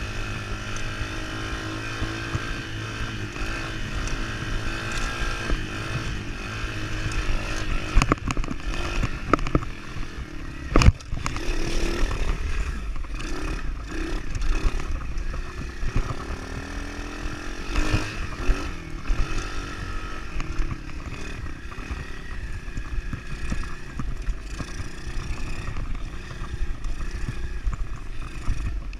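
A 110cc pit bike's four-stroke single-cylinder engine running as it is ridden off-road, its revs rising and falling with the throttle and gear changes. Now and then the bike clatters over rough ground, with a sharp knock about eleven seconds in.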